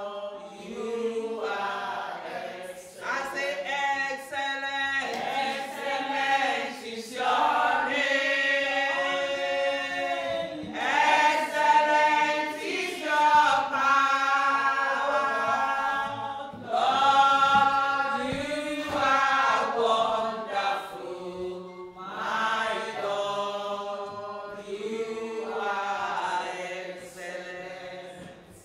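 A woman leading a slow gospel worship song into a microphone, singing long held phrases with short breaks between lines.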